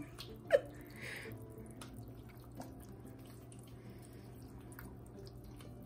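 Silicone spatula stirring macaroni through thick cheese sauce in a pot: soft, wet squelching with many small clicks. There is one brief louder sound about half a second in.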